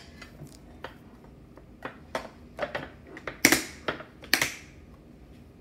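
Wax crayons being handled and set down on a hard tabletop. Light clicks come first, then two louder clatters about three and a half and four and a half seconds in.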